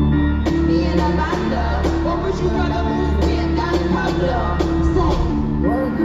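Live hip-hop concert music over an arena PA: a heavy steady bass beat and a repeating synth line, with a vocal over it.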